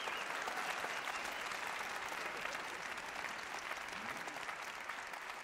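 Theatre audience applauding, the clapping slowly dying down.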